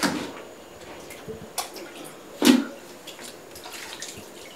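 Water splashing and dripping in a few short bursts, the loudest about two and a half seconds in.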